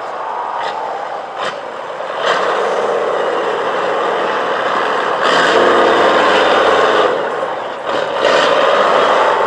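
Mercedes-Benz Unimog trial truck's engine working hard under load, its revs surging up about two seconds in and again around five and eight seconds. A few sharp knocks come in the first couple of seconds.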